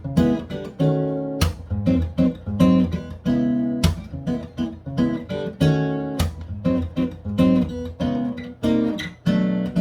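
Taylor 714ce X-braced acoustic guitar being played: chords struck in a steady rhythm about once or twice a second, each ringing out before the next, mixed with picked notes.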